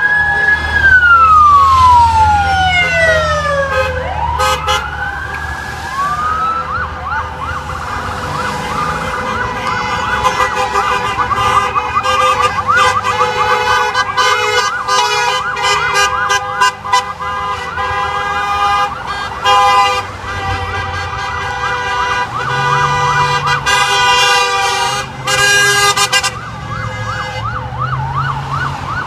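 Several emergency-vehicle sirens sounding at once: a slow wail falling in pitch over the first few seconds, then fast repeated yelp sweeps that overlap for the rest, over steady held tones.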